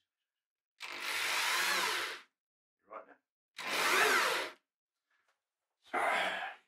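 Power drill turning a long auger bit, boring a keel bolt hole down through the wooden boat bottom. The motor runs in three bursts, the first about a second and a half long and the others shorter, its whine wavering as the bit bites.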